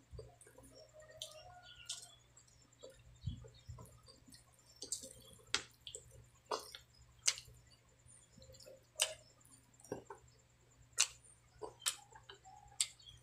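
Close-up wet chewing and lip smacking while eating sticky braised pork hock: irregular sharp smacks, about one a second, with soft squishy sounds between them.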